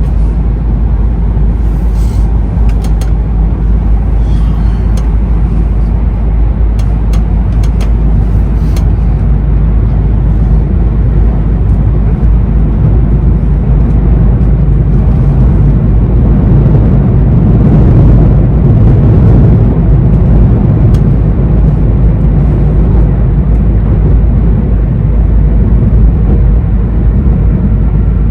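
Running noise heard inside a passenger car of an E2 series 1000 Shinkansen: a steady low rumble of wheels on rail and the train's running gear, which swells a little about two-thirds of the way through. A few faint sharp ticks come in the first nine seconds.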